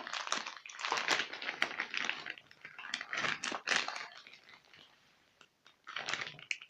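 Plastic packaging of a Kinetic Sand pack crinkling and rustling in irregular bursts as it is being opened, pausing about four and a half seconds in and starting again near the end.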